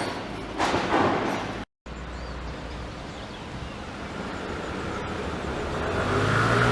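City street traffic: vehicle noise with a brief dropout early on, then a motor vehicle's engine getting louder near the end.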